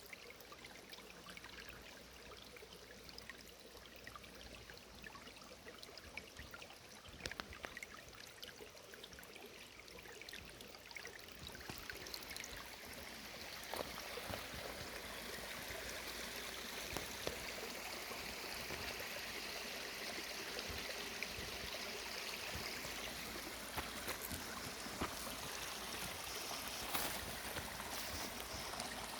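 Mountain stream water running over rocks, a steady rush that grows louder about twelve seconds in.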